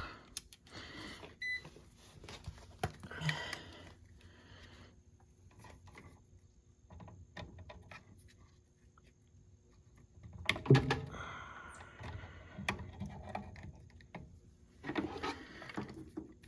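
Quiet handling noises of meter test leads and wiring being moved at an oil burner's primary control: scattered small clicks and rustles, with one sharp click about ten and a half seconds in.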